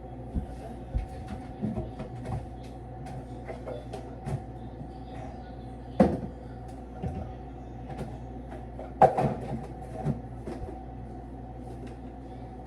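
Kitchen handling noises while seasoning chicken: scattered clicks and light knocks of containers and a pan being moved, with two sharper knocks about six and nine seconds in, over a steady hum.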